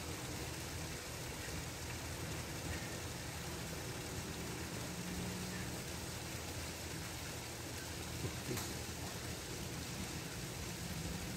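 Steady outdoor background hiss with a low hum underneath, and one faint click about eight and a half seconds in.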